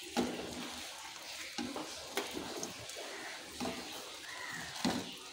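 A slotted metal spatula presses bread cubes down into egg frying in a nonstick pan, with about five soft knocks against the bread and pan. Under it runs a faint sizzle of the egg cooking over low heat.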